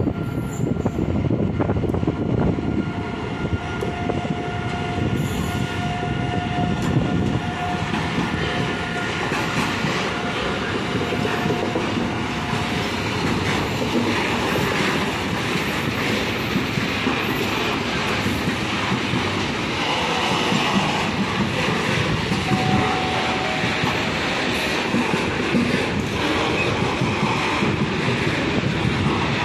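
Container freight train rolling past behind an electric locomotive: a steady rumble and clatter of wagon wheels on the track. A thin steady whine runs through it for several seconds in the first half and returns briefly later.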